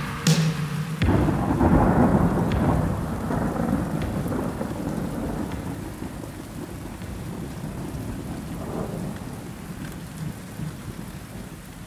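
Thunderstorm: a sharp thunder crack, then heavy rolling thunder over steady rain that slowly dies away and fades out.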